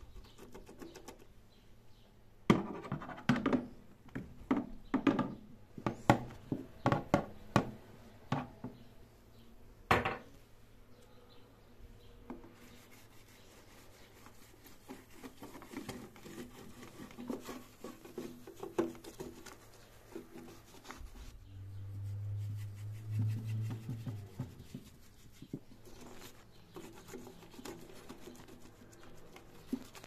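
Hand-scrubbing the inside of an air fryer's cooking chamber and around its metal heating coil with a soapy sponge: rubbing and scratching, with a run of sharp clicks and knocks in the first ten seconds. A short low hum comes in about two-thirds of the way through.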